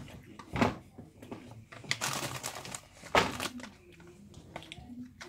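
Rustling and crinkling of a small object being handled, with scattered small clicks, a short stretch of hiss about two seconds in, and two sharp knocks, about half a second in and about three seconds in.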